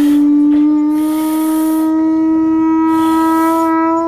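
Handmade conch shell trumpet blown in one long, steady note, its pitch rising slightly at first.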